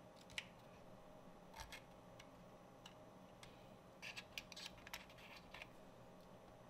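Faint, sharp clicks and light taps of thin laser-cut plywood parts being pressed into slots of a wooden model kit. A single click comes just after the start, and a quick run of clicks follows about four to five seconds in.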